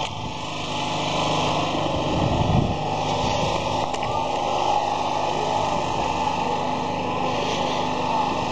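A small motor or engine running steadily, with a constant hum.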